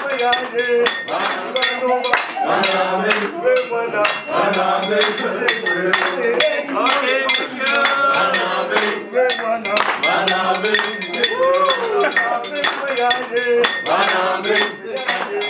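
A group of voices singing and chanting over a fast, uneven clanking of spoons and forks struck against plates and pans.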